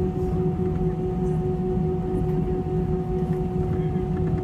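Airbus A320-214 cabin noise while taxiing: its CFM56 jet engines at low power give a steady hum with a constant whine and a low rumble underneath.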